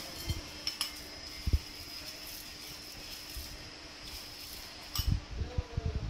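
A metal spoon clinking against ceramic bowls as cornflakes are spooned from a small bowl into a larger one, with a few dull low thumps, the loudest about a second and a half in and a cluster near the end.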